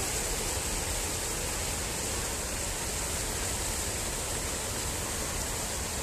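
River water pouring over a dam's weir crest: a steady rushing of water.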